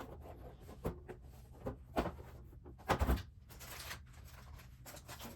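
A Lego sticker sheet being handled and a sticker peeled off: a few short clicks and papery rustles, the loudest cluster about three seconds in, followed by a brief rustle.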